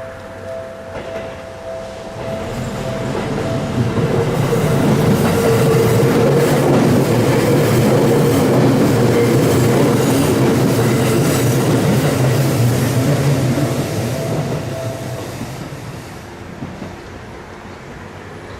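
Seibu Tamako Line electric train passing over a level crossing, its wheels clacking over the rail joints; the sound builds over a couple of seconds, stays loud for about ten seconds, then fades away. The crossing's two-tone electronic warning bell rings at the start and again as the train clears, stopping a few seconds before the end.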